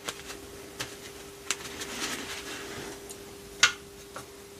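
Desk handling sounds during watercolour painting: a paper tissue rustling softly as it is dabbed and moved on the watercolour paper, with a few small clicks and taps, the sharpest about three and a half seconds in. A faint steady hum runs underneath.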